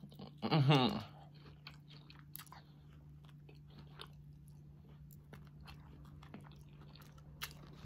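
Close-up chewing and biting of a crispy battered fried chicken wing: many small, sharp crunching clicks and mouth noises, over a steady low hum. About half a second in, the eater gives a short hummed 'mm' that falls in pitch.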